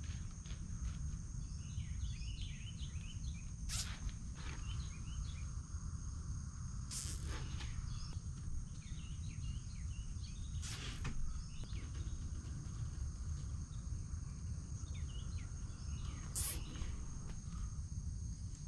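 Outdoor ambience: a steady high-pitched insect trill with scattered bird chirps over a low wind rumble, broken four times by a short sharp clatter.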